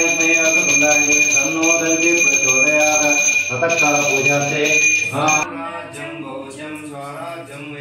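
A puja hand bell rung continuously, a steady high ringing that stops about five and a half seconds in, over a man chanting; the chanting carries on, quieter, after the bell stops.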